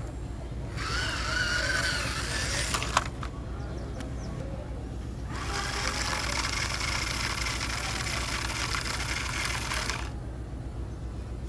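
A small electric motor running in two bursts, a shorter one of about two seconds and a longer one of about five seconds, over a steady low hum, with a sharp click near the end of the first burst.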